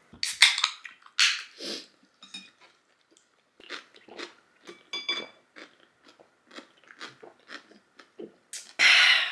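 A person slurping spicy tteokbokki off chopsticks, twice in the first second and a half, then chewing and swallowing with small wet clicks while gulping a soda from a can. Near the end comes a loud breathy "ahh" of satisfaction after the drink.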